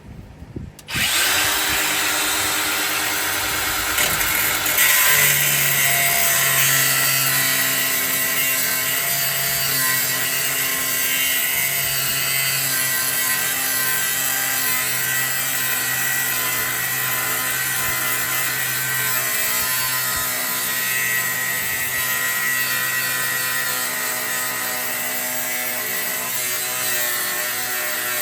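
A power tool cutting through the steel frame rail of a 1985 Chevy C10 for a C-notch. It starts suddenly about a second in and runs steadily, its pitch wavering as the cut loads it.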